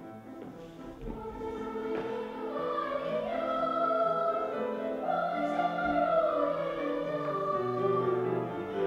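Children's choir singing a melody over instrumental accompaniment; the voices come in about two and a half seconds in, over held accompaniment notes.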